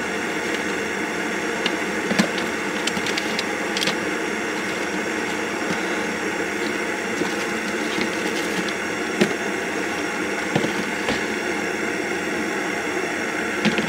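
Steady hiss of an integrated canister gas stove burner heating a pot of water, with a few light clicks and knocks as things are handled nearby.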